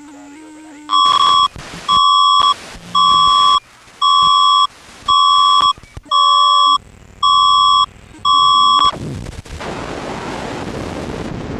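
Electronic alert tone beeping eight times, each beep a harsh buzzer-like tone about half a second long, about one a second. The beeps then give way to a steady rushing noise like static or wind.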